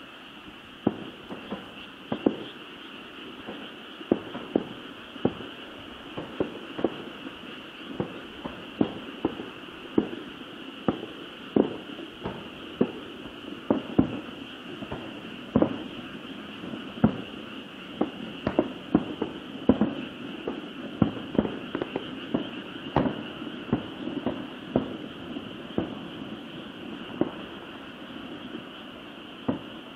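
Distant fireworks shells bursting in a running barrage: a string of sharp bangs, about one or two a second, over a steady high hiss.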